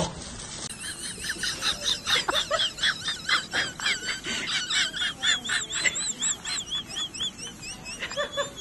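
A cat chewing a small treat: quick crunchy bites, about three or four a second, with a series of high, repeated chirping tones over them.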